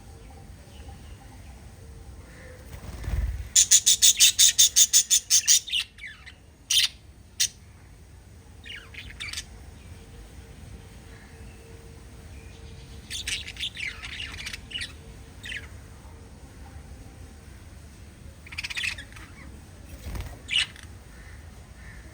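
Small pet parrots calling: a loud, rapid run of sharp squawks, about five a second, a few seconds in, followed by scattered short chirps and squawks.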